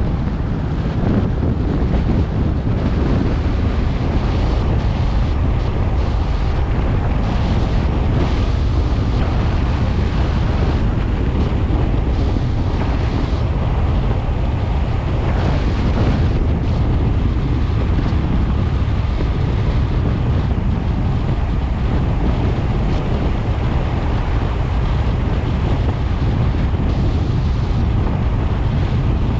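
Steady wind rush on a GoPro 7's microphone from a moving car, mostly a constant low rumble with hiss above it.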